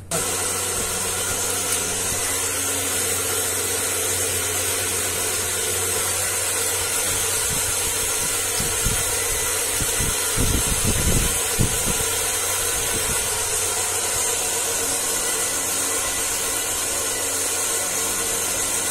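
Steady, unchanging hiss with a low hum, like a small motor running, with a few low thuds about nine to twelve seconds in.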